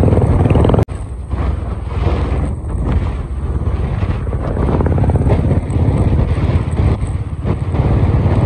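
Motorcycle engine running with a steady pulsing beat, mixed with wind noise on the microphone; the sound cuts out for an instant about a second in.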